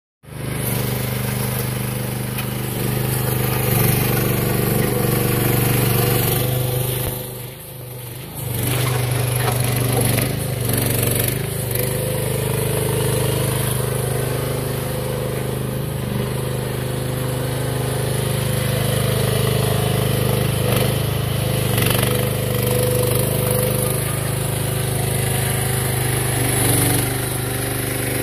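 AGT Industrial QH12 mini excavator's small engine running steadily under hydraulic load while the machine digs and travels, its pitch shifting slightly as the load changes. The level drops briefly about eight seconds in.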